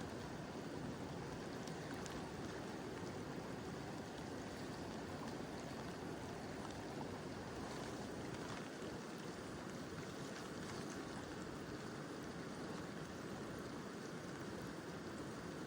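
Mountain river flowing steadily, a constant even rush of water, with light rain falling.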